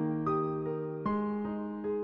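Background music: a piano-like keyboard playing a slow melody, with a new note about every half second.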